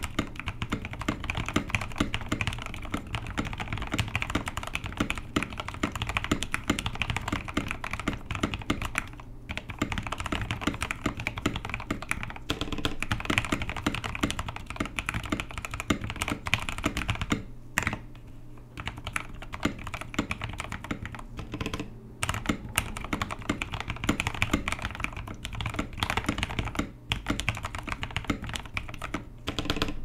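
Fast touch-typing on an Epomaker TH66 60% mechanical keyboard with lubed Gateron Pro Brown tactile switches: a dense, continuous stream of keystrokes with a few brief pauses, the longest a little past halfway.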